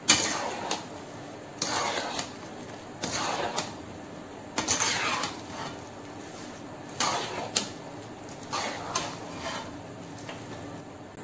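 Spoon stirring fried boondi into sugar syrup in a kadai: a series of scraping, rustling strokes against the pan, one every second or so, the first one sharp.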